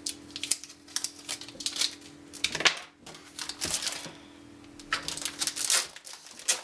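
A keyboard being unwrapped from its plastic packaging: irregular bursts of crinkling and crackling with light clicks and knocks, over a faint steady hum.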